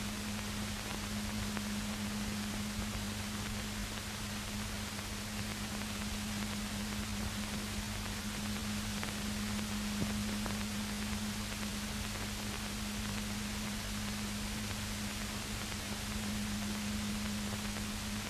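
Steady hiss with a constant low hum and nothing else: the background noise of an old film soundtrack, with one faint click about halfway through.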